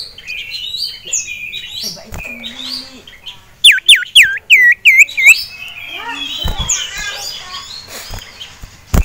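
Common iora calling: scattered chattering notes, then around four seconds in a run of about six loud whistled notes, each swooping down and back up. A few low thumps come in between, the loudest near the end.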